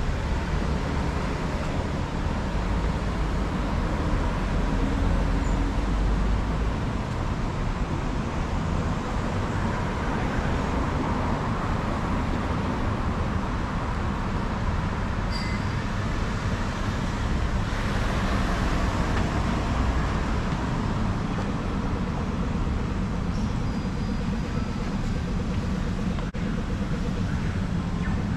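Road traffic noise: a steady rumble of passing cars and other vehicles, with a deeper low rumble in the first six seconds or so.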